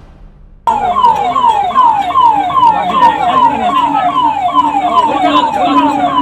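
Emergency vehicle siren sounding as a fast, repeating falling sweep, about two and a half sweeps a second. It cuts in abruptly less than a second in.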